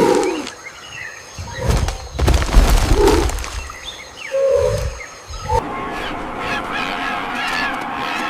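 Recorded animal calls: a few loud, low calls in the first five seconds, then from about five and a half seconds in a steadier chorus of many small high chirps.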